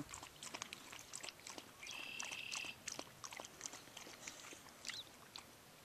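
Faint outdoor ambience beside still floodwater: scattered light clicks and ticks, with one short, steady high-pitched animal call about two seconds in and a brief chirp near the end.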